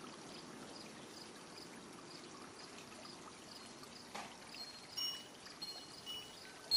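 Faint, steady trickling water, with a few faint wind chime notes ringing near the end.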